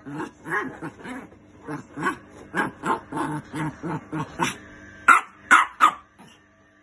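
Chihuahua barking repeatedly in short yaps, about two a second, with three loud, sharp barks about five seconds in.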